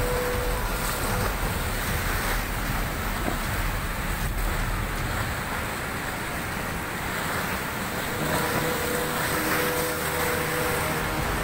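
A flood-swollen river in spate, muddy water rushing past in a steady, dense noise.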